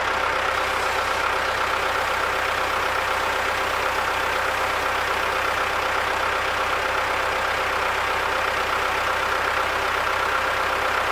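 ZIL-5301 'Bychok' truck's diesel engine idling steadily with the hood up.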